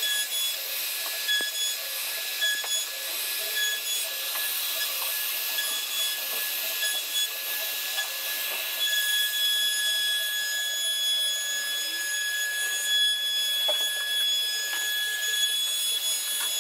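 CNC router spindle whining as it cuts into wood, with a hissing cutting noise underneath. The whine breaks up on and off in the first half and holds steady from about nine seconds in.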